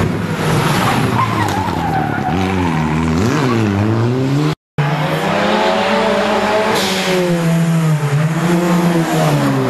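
Rally car engines revving hard, the pitch climbing and dropping again and again as the cars lift off and brake for a hairpin, with tyres squealing. The sound breaks off for a moment about halfway, where one car gives way to the next.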